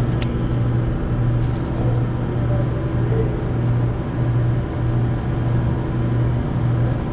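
Steady low mechanical hum running throughout, with a couple of faint light clicks in the first second or two.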